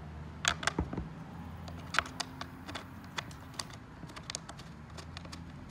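Small hex key clicking and tapping in a screw head against a plastic bumper as a screw is turned in by hand: an irregular run of small clicks, the loudest about half a second and two seconds in.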